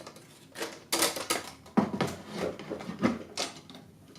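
A string of separate clicks and knocks as the 11x14 back on a Wisner 12x20 wooden field camera is handled and turned from vertical to horizontal.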